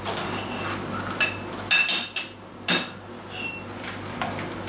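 Machined metal spacers clinking against metal as they are handled and set down: about five sharp knocks, several ringing briefly, over a steady low hum.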